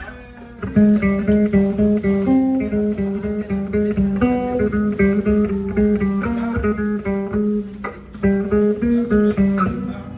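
Guitar playing a quick, repeating picked riff, starting a little under a second in, with a short break near the end.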